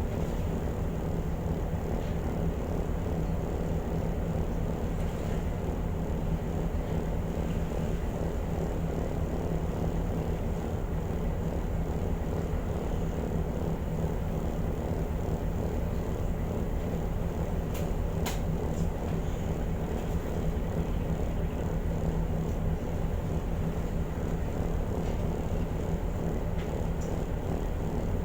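Steady low drone of a car ferry's engines running under way, with a constant hum, and a single short click about two-thirds of the way through.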